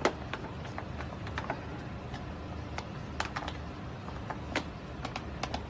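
Irregular sharp clicks and taps, about a dozen, over a steady background hiss; the loudest click is right at the start.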